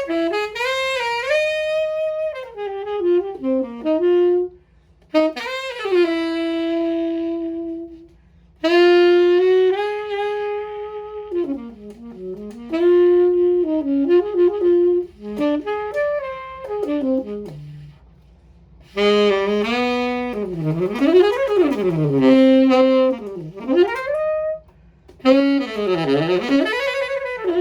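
Unaccompanied saxophone playing a slow jazz melody in phrases separated by short pauses, turning to quick runs up and down through the last third.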